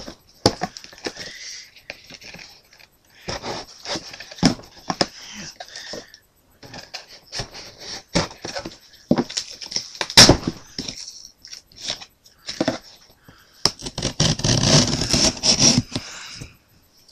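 Packaging being opened and handled by hand: irregular scrapes, crinkles and knocks with short pauses. There is a sharp crack about ten seconds in and a dense stretch of rustling near the end.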